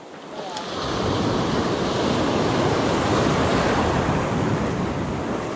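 Sea surf breaking and washing over shoreline rocks, a steady rushing that builds over the first second.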